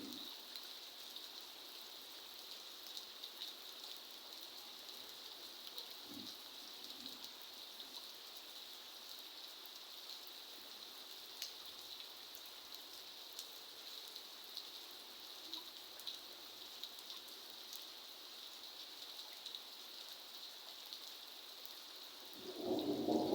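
Steady rain falling, with many small drops ticking on surfaces. Near the end a louder low rumble comes in.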